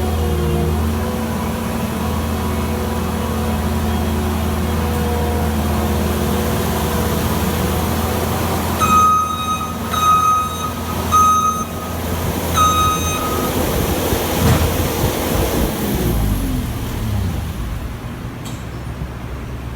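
New Holland L220 skid steer's diesel engine running steadily under work. About halfway through, its backup alarm beeps four times, a little over a second apart, as it reverses. Near the end the engine revs fall away and it runs quieter.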